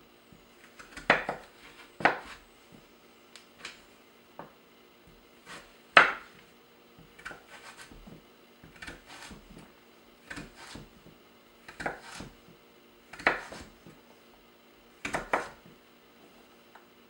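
Chef's knife dicing a raw yam on a wooden cutting board: the blade knocks on the board at an irregular pace, singly or in small clusters, the loudest about six seconds in.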